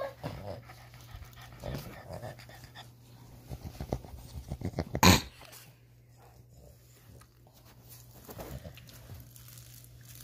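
Boston terrier puppies making short play noises, a quick run of them building to one loud, sharp burst about five seconds in.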